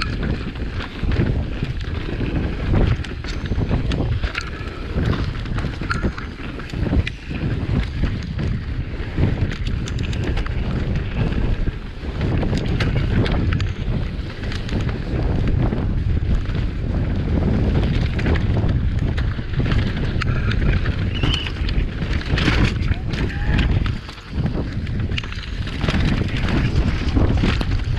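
Wind rushing over the microphone with the rumble and rattle of an electric mountain bike jolting down a rough dirt trail.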